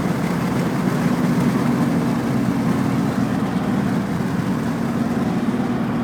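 Drag truck's engine running at a steady speed, a low even drone with no revving.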